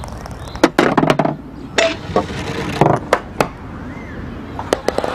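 A string of sharp clicks and knocks, with a few short, noisier bursts in between.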